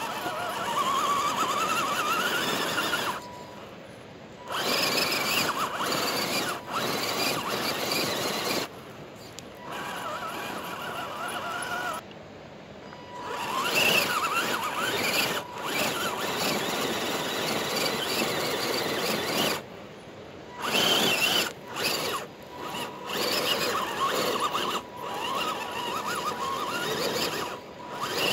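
A 1/10-scale RC crawler's electric motor and gear drivetrain whining in spurts as it climbs a steep, rocky slope. The pitch rises and falls with the throttle, with short pauses between pushes.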